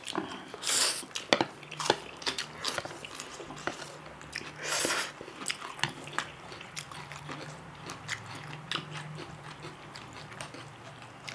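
Close-up eating sounds of noodles being eaten with chopsticks: wet chewing and mouth smacks with many small clicks, and two louder slurps of noodles, about one second in and again at about five seconds.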